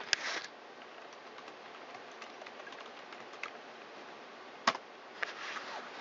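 A few isolated sharp clicks from fingers pressing on and handling an HP Pavilion dv6000 laptop, over a faint steady hiss: one click right at the start and a louder one about four and a half seconds in.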